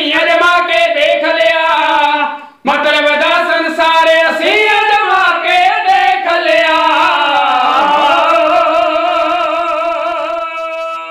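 Three men singing together in kavishari style, Punjabi poetic folk singing with no instruments. There is a brief break for breath about two and a half seconds in, then the voices draw out a long held final note that fades away at the very end.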